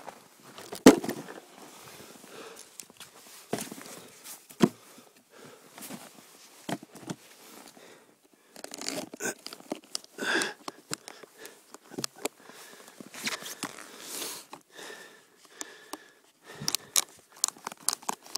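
Irregular crunching and rustling of snow and gear as a snowboard and gloved hands move in soft snow, with scattered sharp clicks and knocks, thickest near the end.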